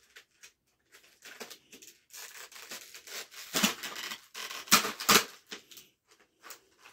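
Thin clear plastic bag crinkling and rustling as it is handled and pulled open, in a run of irregular crackles with a few sharper, louder rustles about halfway through.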